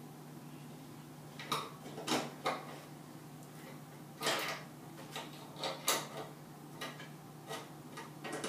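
Scattered clicks, scrapes and small rattles of a wire and tools being handled inside a circuit breaker panel as a surge protector's lead is worked and stripped, over a steady low hum.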